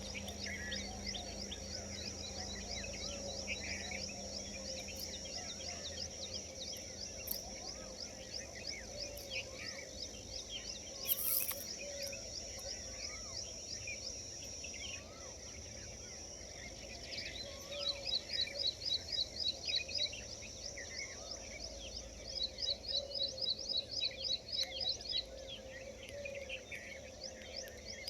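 Outdoor birdsong: many small birds chirping and calling over a steady high-pitched drone, with runs of fast repeated high notes in the second half.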